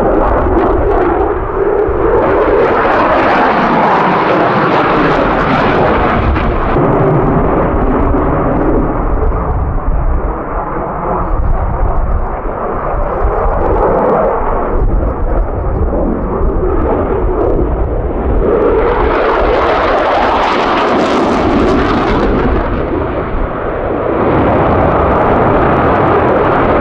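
An F-16 fighter jet's engine heard from the ground during a display flight: a continuous loud rushing jet roar. About twenty seconds in it swells brighter and higher for a couple of seconds as the aircraft comes through closer, then settles back.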